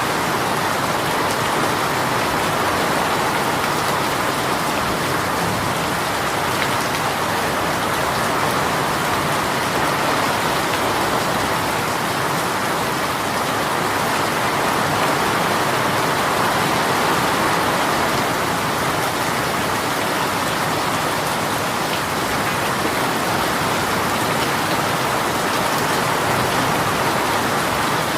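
Heavy shower rain falling steadily, a dense, even hiss with no let-up.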